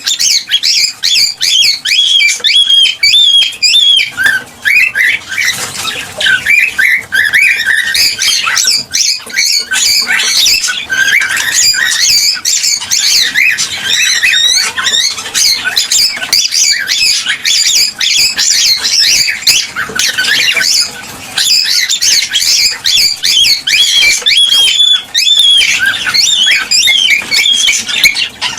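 Cockatiels chirping and squawking nonstop, a busy overlapping stream of short, sharp whistled calls: the excited song of a male cockatiel courting a hen.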